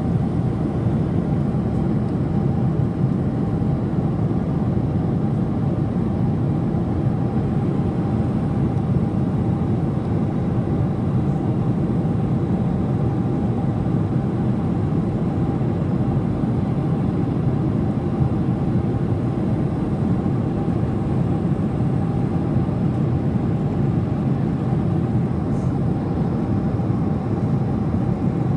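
Jet airliner cabin noise in cruise flight: a steady, deep rush of engine and airflow noise that does not change, with a faint steady tone above it.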